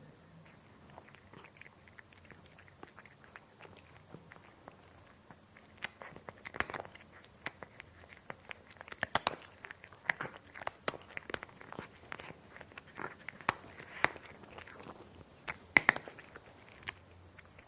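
A cat chewing crunchy dry cat food: irregular sharp crunches, sparse at first and coming thick and fast from about six seconds in.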